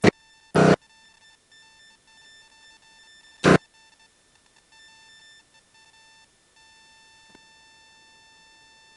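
Rode Wireless Go radio mic link breaking up as the wearer walks out of range: a faint, steady electronic tone that cuts in and out, with two brief loud bursts of noise about half a second and three and a half seconds in.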